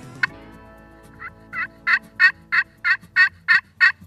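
Hen-turkey yelps on a hand-held turkey call: a run of nine yelps, about three a second, the first two quieter than the rest. A sharp tap comes just before them.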